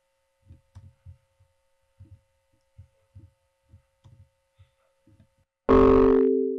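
Electronic drum loop generated in Sonic Pi playing through a PA: soft low kick thumps in an uneven repeating pattern over a steady faint hum. About five and a half seconds in comes a loud burst with two held low tones, lasting under a second.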